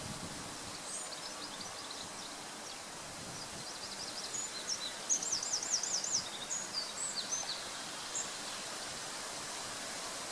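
Small woodland birds singing in high, quick phrases, with a fast trill about five seconds in, over a steady rushing background.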